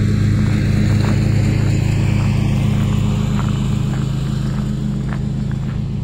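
A steady low mechanical hum, with a few faint clicks or taps over it.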